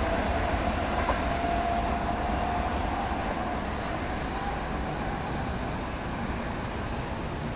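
Electric train running past on the line and drawing away, its rumble fading steadily, with a faint high whine in the first few seconds that sinks slightly in pitch.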